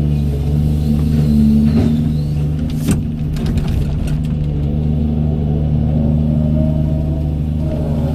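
Diesel engine of a Doosan 210W wheeled excavator running steadily while it works. A sharp metallic clank comes about three seconds in, followed by a few lighter knocks.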